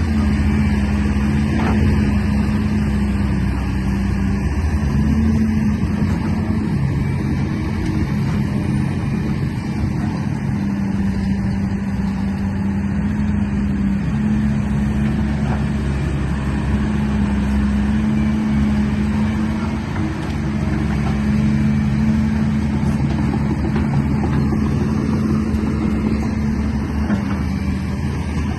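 A vehicle's motor humming steadily, its pitch shifting slightly now and then.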